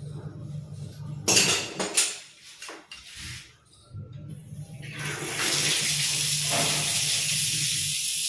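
A few loud clunks of metal or plastic fittings, then about five seconds in water starts running hard from a tap or pipe with a steady hiss.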